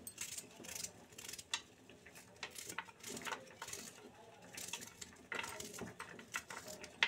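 Small knife cutting a raw onion held in the hand: faint, irregular crisp cuts and scrapes.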